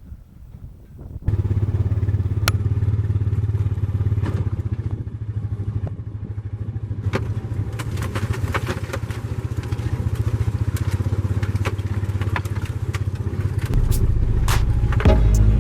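Side-by-side UTV engine running at a steady low throb, with rattling and knocking clatter over it. It comes in suddenly about a second in and grows louder and deeper near the end.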